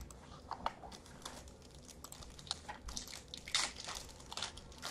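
Quiet crinkling and scattered light crackles of a shiny foil trading-card pack wrapper being handled as it comes out of its box.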